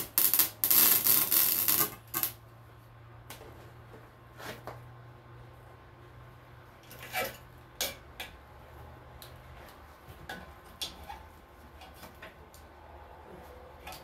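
Welder arcing in a few short crackling bursts in the first two seconds, as on short tack welds on a cracked exhaust, followed by scattered light clicks and taps over a steady low hum.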